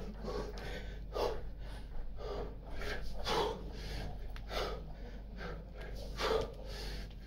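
A man breathing hard from exertion during kettlebell thrusters, with short forceful breaths in and out about once a second.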